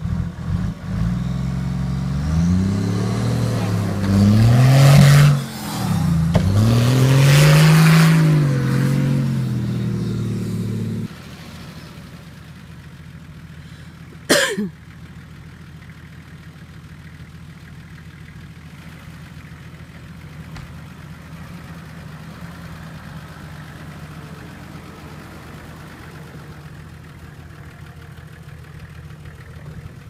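Off-road SUV engine revving hard under load in two long surges, rising and falling in pitch, as it claws up a steep rutted slope. It stops abruptly about 11 seconds in, leaving a quieter vehicle engine running steadily. A single brief sharp sound comes partway through that steady stretch.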